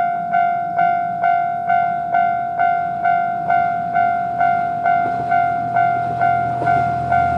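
Japanese railway level-crossing warning bell ringing steadily, a little over two strokes a second, each stroke a bright ringing tone that fades before the next. Near the end the low rumble of an approaching Kiha 2400-class diesel railcar rises beneath it.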